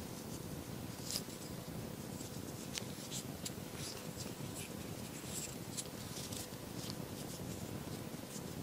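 A crochet hook working yarn stitch by stitch: faint, scattered soft clicks and scratches, over a faint steady hum.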